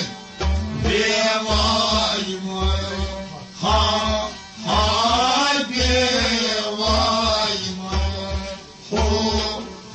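Old Kashmiri Sufi song: a singer's voice in long phrases with short breaks, over a steady drone and a repeating low drum beat.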